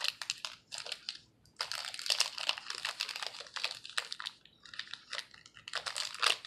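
Trading cards being handled close to the microphone: dense crisp crinkling and clicking, with a short pause a little over a second in.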